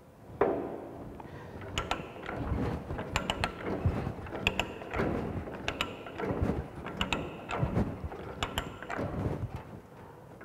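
Ratcheting pipe die stock being worked on an oiled steel pipe in a pipe vise: the pawl clicks and the die grates on the thread in repeated strokes, about one a second, starting with a loud clack about half a second in.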